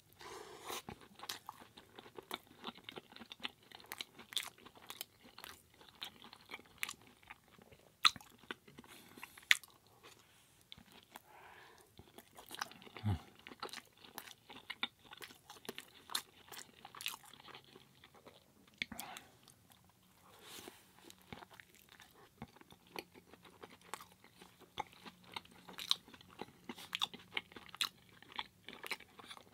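A person chewing a mouthful of curry burrito in a tortilla wrap close to the microphone: a steady run of wet, crunchy mouth clicks, with two sharper crunches about eight and nine and a half seconds in.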